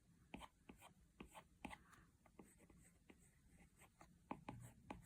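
Faint, irregular taps and light strokes of a stylus on an iPad's glass screen while drawing in Procreate, about a dozen small clicks.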